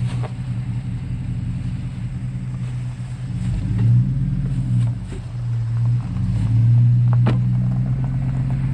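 Vehicle engine running with a steady low drone, rising in loudness about three and a half seconds in and again near seven seconds as it picks up.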